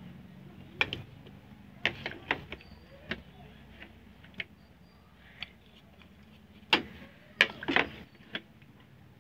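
Small raw goby fish (bia) dropped by hand into an aluminium pot, giving irregular sharp taps and slaps, with a cluster of the loudest ones about three-quarters of the way through.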